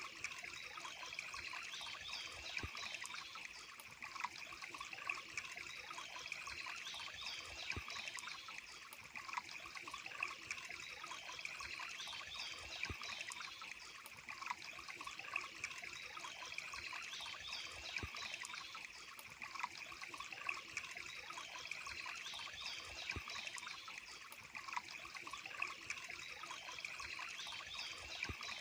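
Water trickling and splashing steadily over rocks in a small stream or waterfall, with scattered small drips. Small birds chirp briefly every few seconds above it.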